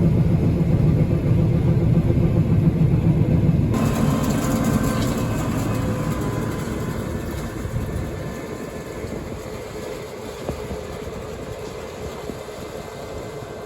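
Diesel farm machinery running with a heavy, low rumble. About four seconds in the sound changes abruptly, then slowly fades as the machine moves away.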